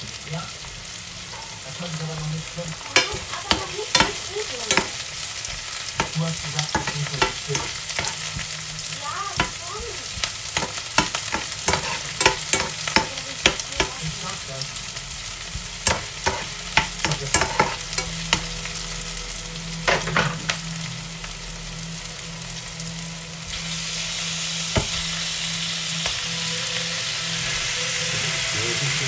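Sliced onions sizzling in a frying pan, stirred with a plastic spatula that scrapes and taps against the pan many times. About three-quarters of the way through, raw pork belly pieces go in and the sizzle becomes louder and steadier.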